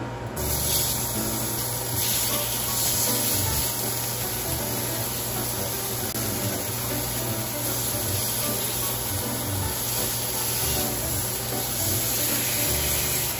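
Round steaks sizzling steadily as they sear in an oiled stainless steel frying pan; the sizzle starts suddenly just after the start as the meat goes into the hot pan.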